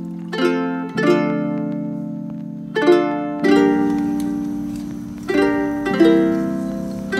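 Background music: a plucked string instrument playing slow chords, each struck sharply and left to ring out and fade before the next.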